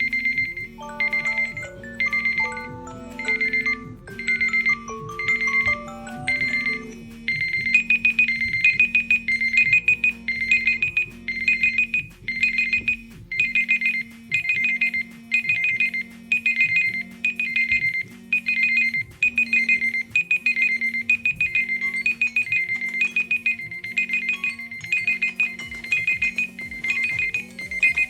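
Several mobile phone alarm and timer tones ringing at once: a fast pattern of high electronic beeps over a looping low ringtone melody, with a falling run of notes in the first few seconds. About seven seconds in, a second, slightly higher beep pattern joins. Near the end a rising sweep sounds.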